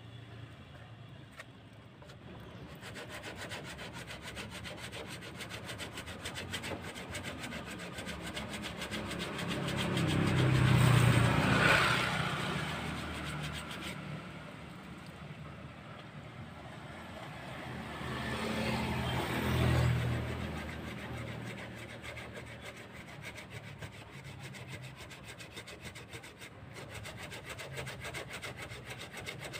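Sandpaper on a hand sanding block rubbing back and forth over wet green primer filler on a car's body panel: a steady, rapid rasping scrub of wet sanding. Passing road traffic swells louder twice, around ten and nineteen seconds in.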